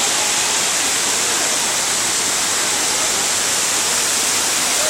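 Water of the Margoon waterfall pouring down, a loud, steady rush with no let-up.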